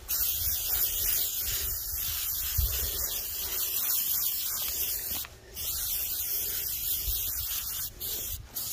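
Aerosol can of Amsoil Mudslinger spraying with a steady hiss, in long bursts with short breaks: one about five seconds in and two near the end.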